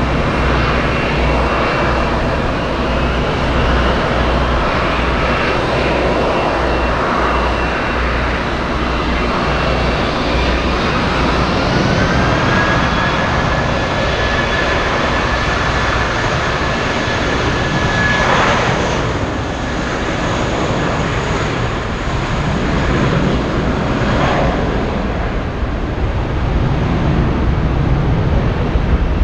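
Jet airliner engines running loud, with a whine that climbs in pitch about twelve seconds in and then holds steady.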